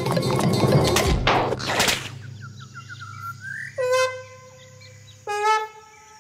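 Cartoon soundtrack: busy music with percussion that ends about two seconds in with a whoosh, then a run of quick bird-like chirps, then two short pitched notes about a second and a half apart.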